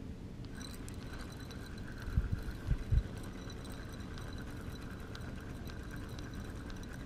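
Steady low rumble of handling noise on a body-worn camera, broken by three dull low thumps a little over two seconds in.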